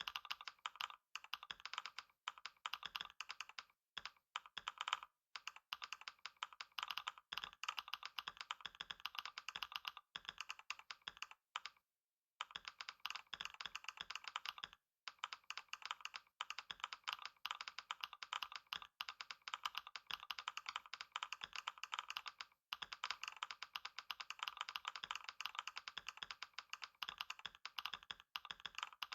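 Fast, continuous typing on a computer keyboard, a rapid stream of key clicks during a speed-typing test, broken by a brief pause about twelve seconds in and another shortly after.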